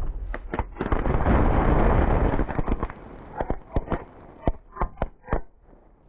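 A consumer firework canister shell going off at ground level in a blown-apart mortar rack. About a second in there is a dense two-second rush of crackling, then a string of separate sharp pops that thin out and stop near the end.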